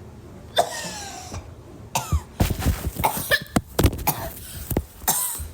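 A woman coughing hard over and over, with a breathy, drawn-out vocal sound first and then a run of sharp coughs, set off by the strong vapour of six essential oils mixed in a humidifier.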